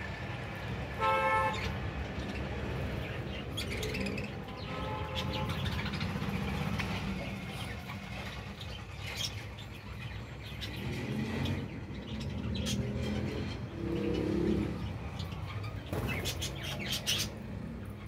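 Budgerigars chirping, with one loud call about a second in, over a steady low rumble.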